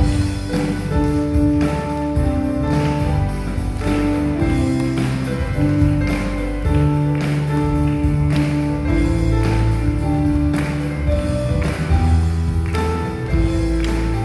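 Worship band playing an instrumental introduction: acoustic guitar and keyboard chords over bass and a steady drum beat.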